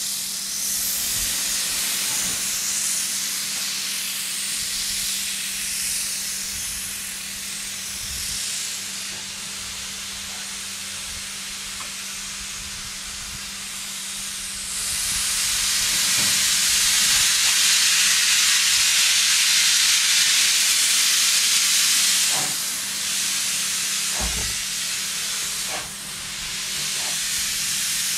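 Steam hissing from a small 0-6-0 steam switcher locomotive, escaping low down by the cylinders. The hiss swells loud about halfway through and drops back near the end, over a steady low hum and a few faint knocks.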